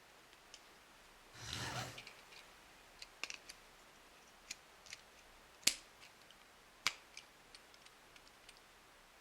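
Small hard plastic toy pieces being handled: a short rustle about a second in, then scattered light clicks and taps, two of them sharper, as parts are fitted together.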